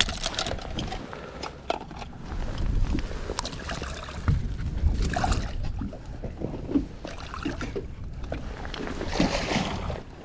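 Handling noises on a bass boat: scattered knocks and clicks against the deck and the rustle of wet rain gear, over water sloshing against the hull.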